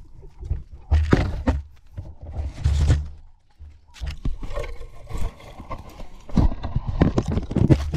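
A GoPro being handled by African wild dogs, heard on its own microphone: a run of knocks, scrapes and heavy low thuds against the camera body, thickest over the last two seconds.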